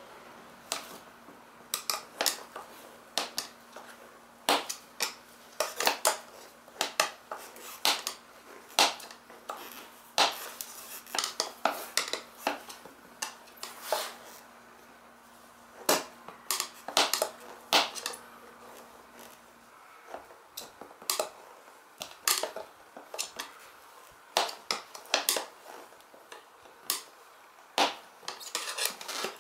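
Metal tyre levers clinking and scraping against a Yamaha Jog Poche scooter wheel rim as the tyre bead is pried over the rim by hand. The clacks come irregularly, a few at a time with short pauses between.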